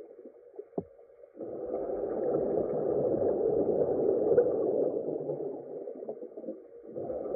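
A dense, muffled rumbling drone. It cuts out for about a second near the start, leaving only a short falling squeak, then swells back and dips again near the end.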